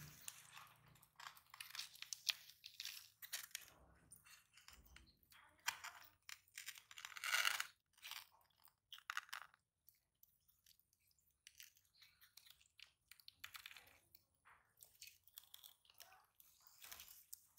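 Sulcata tortoises biting and crunching on fresh fruit and vegetables: irregular crisp crunches, the loudest about seven seconds in.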